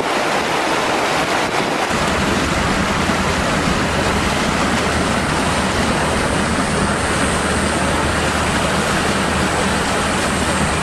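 Steady rush of floodwater around a vehicle driving through water over the road, with the low hum of its engine coming in about two seconds in.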